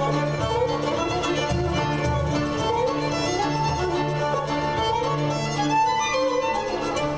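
Solo violin playing fast runs of notes over a string ensemble with a held low bass note, in a Turkish longa.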